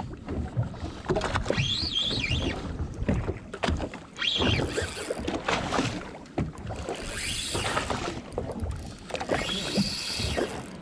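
Wind on the microphone and water against the boat's hull. Over them comes a spinning reel in four spells of rising and falling whir, as a fish is played on light jigging tackle with a loose drag.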